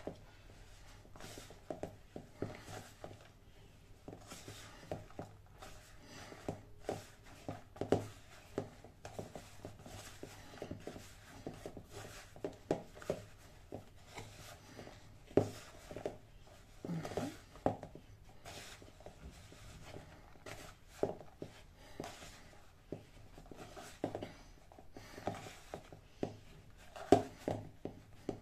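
Hands kneading pestiño dough in a plastic bowl: an irregular run of soft squishes, rubs and light taps as the flour mixture is pressed and worked together into a paste.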